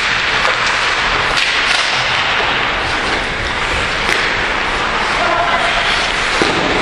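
Ice hockey play: skate blades scraping the ice under a steady noisy wash, with several sharp clacks and knocks of sticks, puck and boards.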